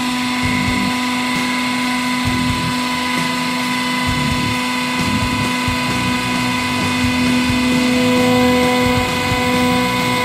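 Hydraulic press running with a steady mechanical hum as its ram slowly lowers a guillotine blade onto a stack of coins, growing slightly louder near the end.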